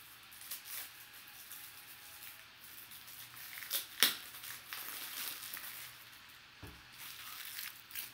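Trading cards in plastic holders being handled and shuffled through: rustling and light plastic clicks, with one sharp click about four seconds in and a dull thump a little later.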